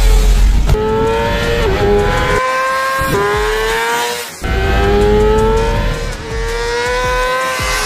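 2024 Kawasaki Ninja ZX-6R's inline-four engine revving hard at high rpm, its note climbing in pitch about four times with a short drop between climbs, as when accelerating up through the gears.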